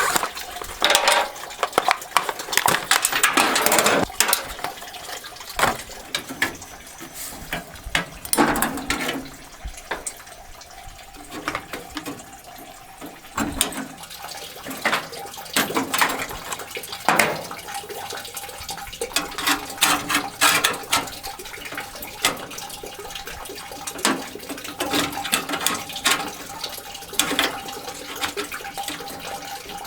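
Radiator coolant running out of the drain petcock into a 5-gallon bucket, with repeated metal clinks and clatter from tools and battery hold-down hardware being handled.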